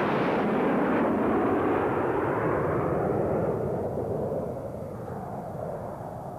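Harrier jet flying past, a loud rushing jet noise that fades away steadily over the last few seconds as the aircraft goes off into the distance.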